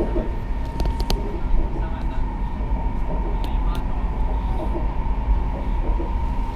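Cabin noise of a CRH high-speed train running: a steady low rumble and rush with a constant faint whine, and a few light clicks about a second in and again after three seconds.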